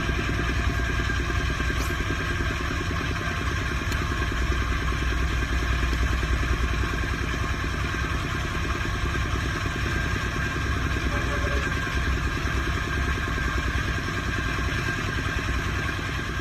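A small engine running steadily, with a fast even putter and a constant high whine.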